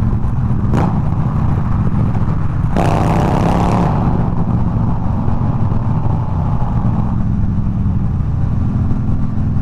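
Harley-Davidson touring motorcycle's V-twin exhaust drone at highway speed, picked up by a helmet microphone along with road and wind noise. About three seconds in, a second motorcycle's exhaust revs up loudly for about a second.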